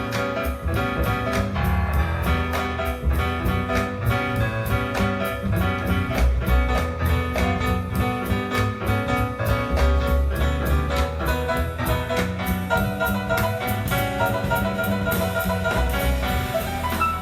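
Recorded music with a steady beat played back through a Yamaha PC2002M power amplifier.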